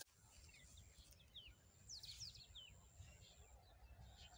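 Faint outdoor birdsong: a few short, quick downward-sweeping chirps, over a low wind rumble and a thin steady high tone.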